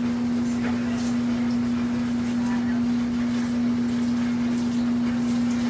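A steady, even hum with a constant hiss behind it, and faint voices in the background.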